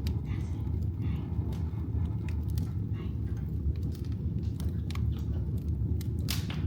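Wood fire burning in a fireplace: irregular crackles and pops over a steady low rumble, with one louder pop near the end.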